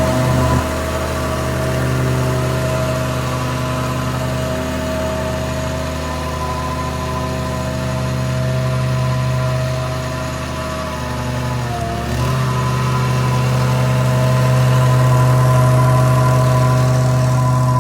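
Engine of construction machinery running steadily, with a brief dip and recovery in pitch about twelve seconds in.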